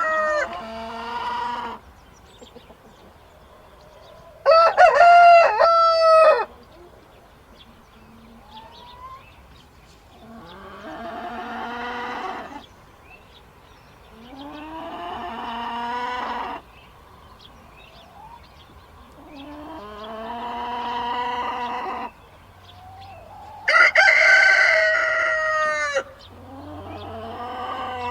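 Roosters crowing again and again, about seven crows each lasting about two seconds. Two of the crows are louder and higher-pitched than the others.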